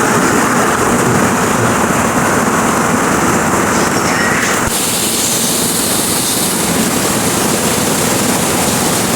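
Mountain stream water rushing over rocks, a steady loud hiss; about halfway through its tone suddenly turns brighter.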